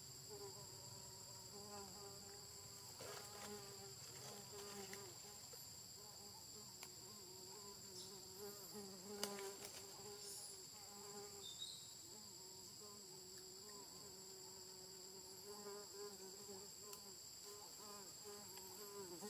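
Faint, steady insect drone held on two high pitches, with a few small clicks.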